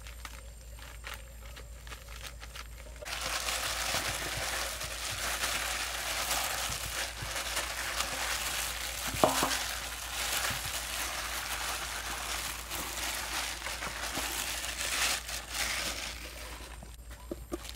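Plastic-gloved hands rubbing and turning whole raw chickens in a flour coating inside a stainless steel bowl: a dense crinkling, rustling noise that starts about three seconds in and dies away near the end, with one sharp knock near the middle.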